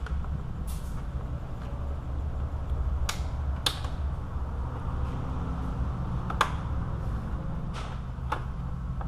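Sharp clicks and clacks of radiator clips and fan-shroud parts being handled and pried at, about six separate hits, over a steady low hum.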